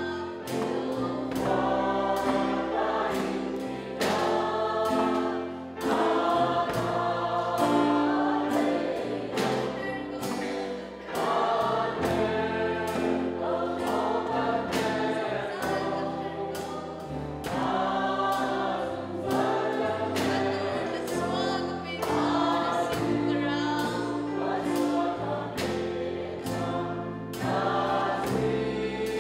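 A group of voices singing a worship song together, backed by a live band: a drum kit keeps a steady beat under guitar and sustained low notes.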